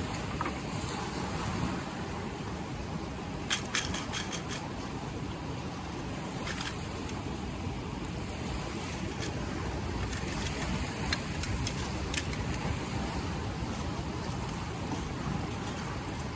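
Steady rush of sea surf and wind, with a quick run of small clicks about four seconds in and a few more scattered later.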